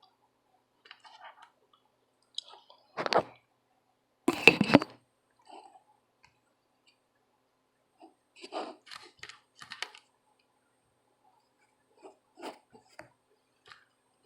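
Irregular clicks, taps and rustles of small objects being handled, with two louder knocks about three and four and a half seconds in.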